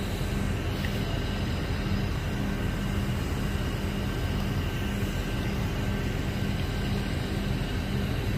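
Crane's engine running steadily with a constant low drone, powering the hoist while a hot tub hangs from it.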